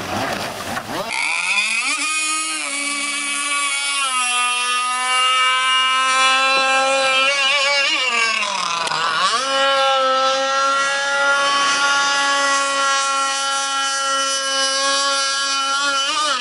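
Radio-controlled speedboat's motor whining at high speed as the boat runs across the water, a high, steady pitch. Partway through the pitch drops sharply as the boat takes a turn, then climbs back to full speed.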